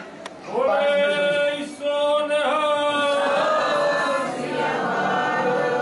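A Sikh jakara: one man's long, drawn-out call, answered about three seconds in by many voices shouting together.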